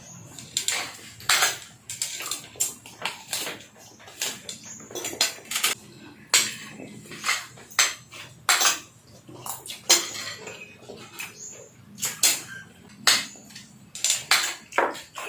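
Cutlery clinking and tapping against dishes during a meal, in many sharp, irregular clinks.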